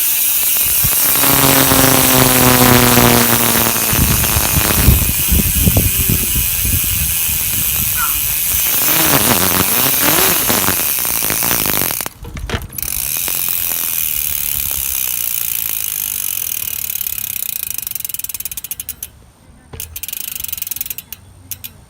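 Mountain bike rear freewheel hub with six pawls buzzing loudly as the spun rear wheel coasts, the pawls clicking too fast to count. It stops briefly about halfway through, starts again, and breaks up into slower, uneven clicks near the end as the wheel slows.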